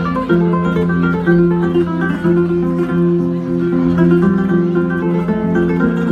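Background music led by plucked acoustic guitar, with quick picked notes over held low notes.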